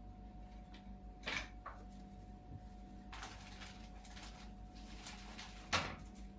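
A small white rabbit sneezing: short sharp sneezes, one about a second in and the strongest near the end, with fainter puffs in between. It is the persistent, repeated sneezing that would not stop.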